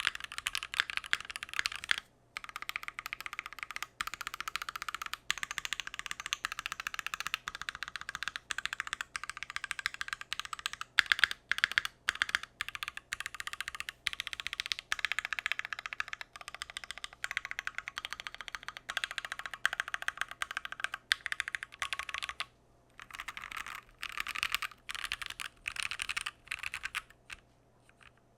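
Fast, continuous typing on a Keychron Q1, a gasket-mounted aluminium mechanical keyboard, with a few brief pauses. The keystrokes thin out to a few scattered presses near the end, then stop.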